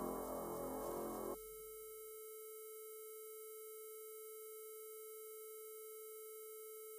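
The music's tail stops abruptly about a second and a half in, leaving one steady, buzzy electronic tone held at a constant pitch.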